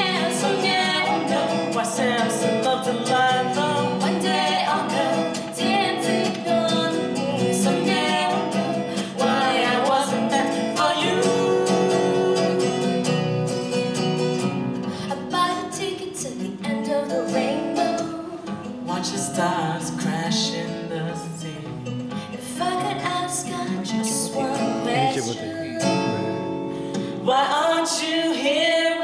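Acoustic guitar accompanying a singing voice in a live song performance. The music grows softer for a few seconds past the middle, then swells again near the end.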